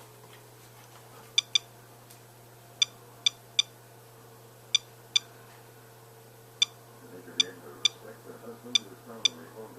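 Geiger counter clicking irregularly, about a dozen sharp counts at random intervals, as it picks up radiation from the radioactive source inside an ionisation smoke detector.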